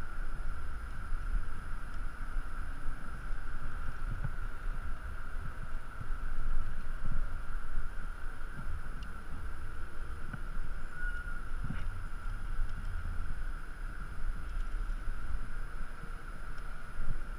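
Wind buffeting the microphone of a body-mounted action camera during a rappel down a building face: an uneven low rumble with irregular thumps, over a steady high hum.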